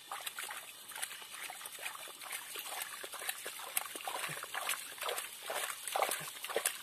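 A hand sloshing and splashing through muddy water in a shallow flooded hole, groping for crabs: many irregular small wet splashes and clicks.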